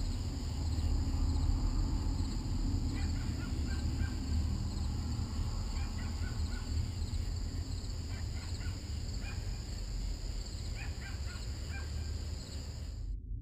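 Outdoor night ambience: a steady high insect trill over a low rumble, with short bird-like calls in clusters from about three seconds in. The high sounds cut off abruptly just before the end.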